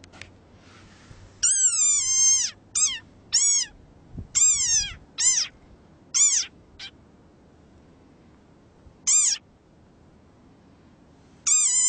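Desert rain frog calling: a series of about nine shrill, squeaky cries, each falling in pitch, the first one long. Most come in a quick run, then a pause of a few seconds before the last two.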